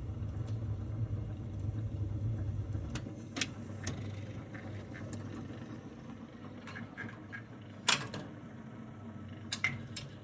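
Bergmann Jupiter Saphir 120H jukebox mechanism after a record has finished: a low hum that drops out about three seconds in, followed by scattered sharp mechanical clicks.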